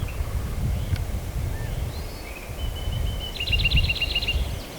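Wind rumbling on the microphone, with a bird calling: a held high note, then a quick run of about eight repeated chirps about three and a half seconds in.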